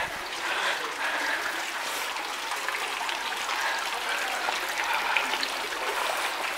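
Indoor tiered fountain, water falling steadily and trickling into its basin.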